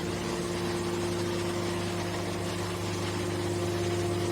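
Hydraulic can baler's motor and pump running, a steady even hum.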